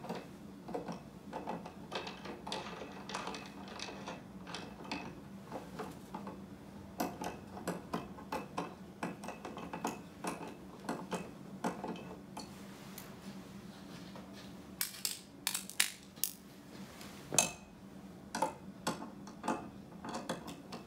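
Small metal clicks and clinks of mounting hardware being handled and a ratchet wrench being worked on the pod-light bracket bolt, irregular, with a few quick runs of clicks past the middle. A faint steady hum sits underneath.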